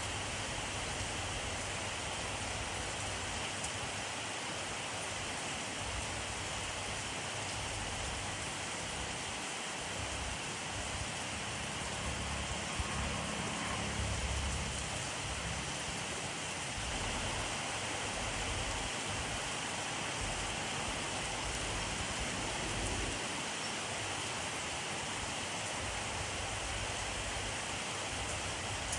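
Steady rainfall, an even hiss of rain falling on surfaces. A deeper low rumble swells and fades about 12 to 15 seconds in.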